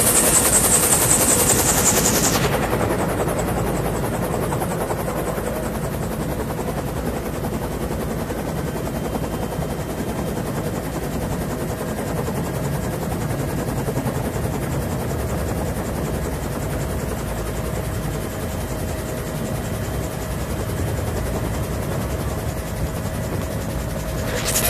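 Bell UH-1 Huey helicopter's turbine engine and main rotor running at full power during takeoff, heard from inside the cabin as a steady loud din. A bright hiss on top of it cuts off about two and a half seconds in.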